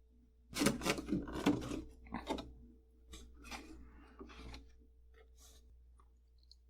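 A run of rustling, scraping handling sounds, loudest and densest for the first second and a half, then a few softer scrapes, over a faint steady hum.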